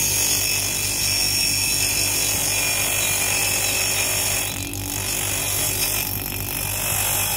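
Bench grinder wheel grinding the steel of a worn circular saw blade, a steady grinding over the motor's low hum, easing briefly near the middle.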